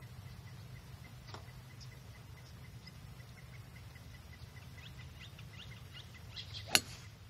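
A golf club strikes a teed ball once, a single sharp crack near the end. Faint bird chirps sound in the background.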